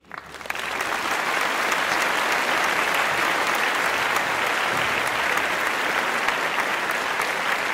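Audience applause: many hands clapping, swelling up from silence in the first half second and then holding steady.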